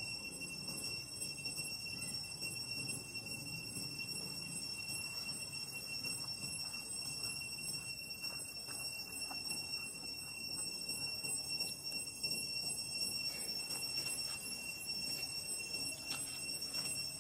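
A steady, high-pitched insect drone over faint outdoor ambience, with a few light clicks near the end.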